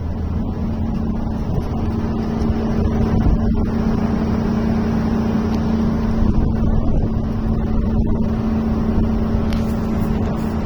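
Engine of a heavy log-handling machine running at a steady speed, a constant drone with no change in pitch.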